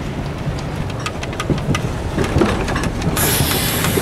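Sasara snowplow tram car approaching on snow-covered track: a steady low rumble from its running gear with a run of sharp clicks, growing louder. About three seconds in a loud hiss sets in as its rotating bamboo brooms sweep and fling snow right beside the listener.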